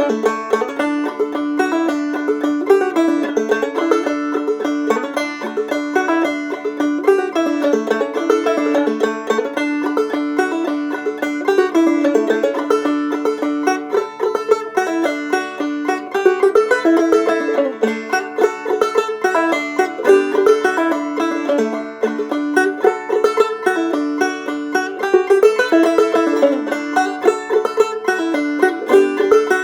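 Banjo played clawhammer style: a steady, rhythmic run of plucked notes over a repeating low note.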